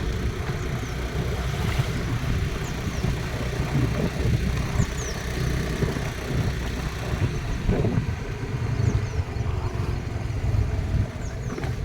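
A motor vehicle's engine running steadily with a low rumble, and a noisy wash above it.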